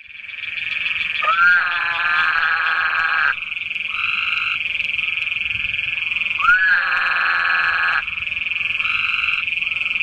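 Woodhouse's toads calling: two long calls, each about two seconds and swinging up in pitch as it starts, with fainter short calls between them, all over a steady high-pitched trill.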